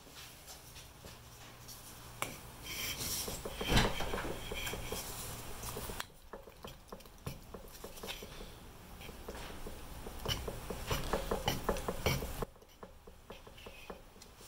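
Filler spreader scraping and smearing Bondo-Glass fiberglass filler across a fiberglass body panel, irregular strokes with small clicks and taps.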